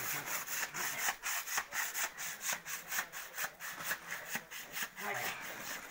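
Handsaw cutting down into packed snow in a snow well, with quick, even back-and-forth strokes that ease off near the end.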